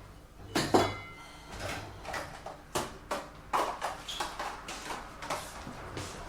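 Dishes knocking and clinking together as they are washed: a run of irregular clatters, with the loudest, ringing clink about a second in. A faint low hum comes and goes underneath.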